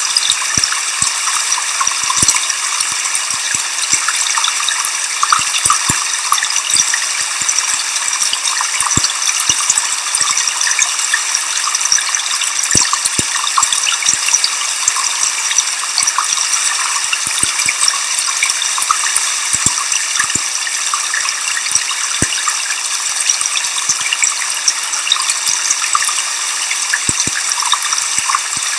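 Waterfall sound mixed with white noise: a steady, even rushing hiss, sitting high with almost no deep rumble, with faint scattered clicks throughout.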